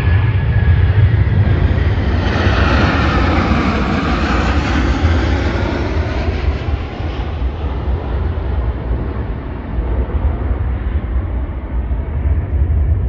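Airliner passing low overhead: a loud jet roar that swells over the first few seconds and then slowly fades, over a steady low rumble.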